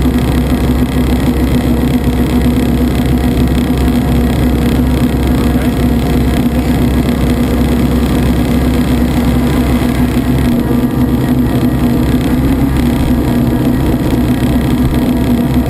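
Schweizer 300 helicopter's piston engine and main rotor running steadily on the ground, a loud even drone with a strong constant hum, heard from inside the doorless cabin.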